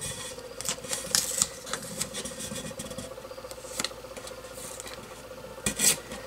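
Painter's tape being worked onto a tumbler: soft rustling and rubbing as strips are pressed down and smoothed, with a few short louder rasps, the loudest near the end.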